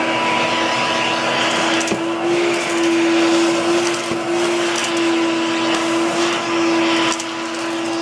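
Shop vacuum running at full speed with a steady humming whine and rushing air, with a few faint clicks, as it sucks up rat droppings from an attic floor.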